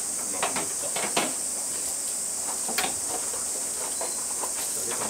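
Cicadas shrilling, a steady high buzz, with a few light knocks of things handled on a table.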